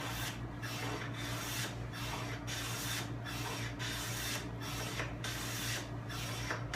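Lie-Nielsen No. 7 jointer plane cutting shavings along a wooden board's edge: a steady run of hissing strokes, about two a second, as the edge is planed true and the tracksaw marks are taken off.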